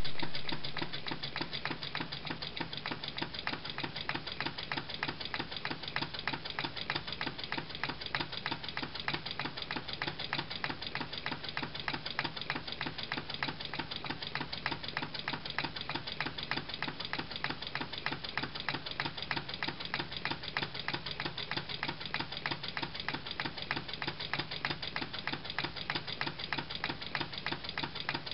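Single-chamber Stirling engine built from an aluminium drink can, with a balloon diaphragm and a bent-wire crankshaft, running over an alcohol lamp flame: a rapid, even mechanical clicking as it turns over.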